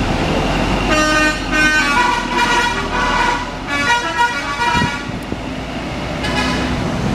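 Bus 'telolet' horn, a multi-tone musical horn, playing a quick tune of changing notes for about four seconds, then a shorter burst of notes near the end, over the low rumble of an idling bus engine.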